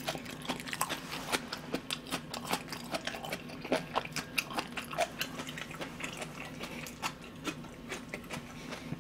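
A person chewing food close to the microphone: a dense, irregular run of small wet clicks and smacks from the mouth.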